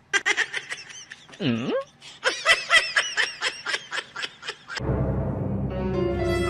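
A person laughing in rapid, high-pitched bursts, with one deep swooping cry partway through. About three-quarters of the way in, the laughing stops and steady music comes in.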